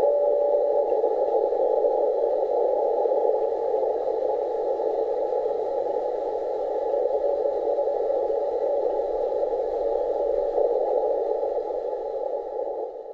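Shortwave receiver on the 14.100 MHz beacon frequency, its band noise heard as hiss through a narrow CW filter. A Morse-code beacon tone sounds in dashes for about the first second, then only the noise remains: band conditions are very poor.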